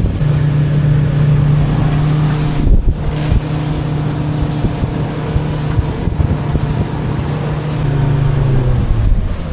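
Outboard motor pushing a small aluminium boat at speed, a steady engine drone over wind rumble on the microphone. Near the end the engine note falls and fades as the throttle is backed off.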